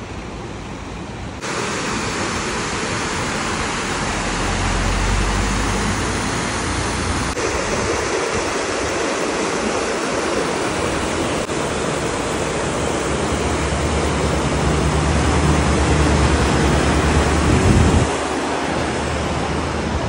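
Shallow mountain river rushing over rocks and small rapids: a steady rush of water that gets louder about a second and a half in, with a low rumble coming and going underneath.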